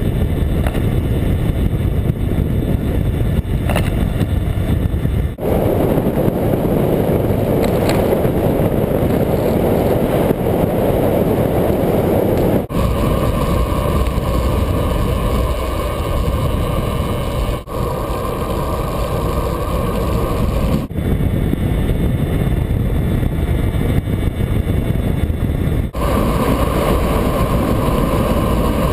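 Steady rush of wind and tyre noise on a bicycle-mounted GoPro's microphone while riding on pavement. The noise changes abruptly several times.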